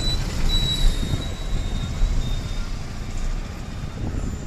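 Road and engine noise of a vehicle driving through town traffic: a steady low rumble. A faint, thin high-pitched tone runs through the first couple of seconds.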